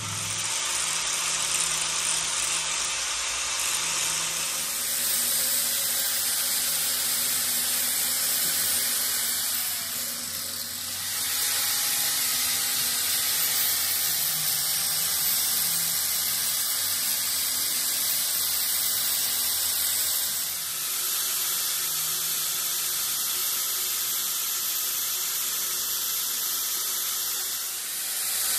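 Angle grinder with an abrasive disc grinding a steel pinion gear, a steady high-pitched grinding hiss that dips briefly about three times.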